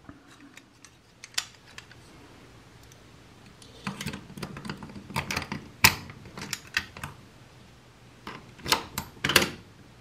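Small metal clicks and rattles of a Honda ignition lock cylinder being pushed into its steering-lock housing, with one sharp click in the middle. A few more clicks near the end as the key goes into the lock.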